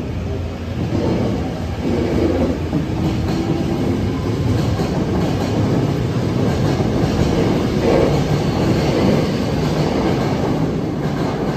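Kyoto Municipal Subway 10 series electric train running along the platform track: a steady rumble of wheels on rail with clickety-clack over the rail joints.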